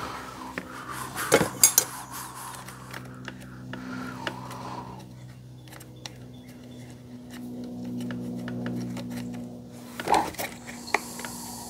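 Small metal parts, screws and hand tools clinking and tapping while the carburetor side of a Husqvarna 142 chainsaw is put back together. There is a cluster of louder clinks about a second and a half in and another near the end, over a steady low hum.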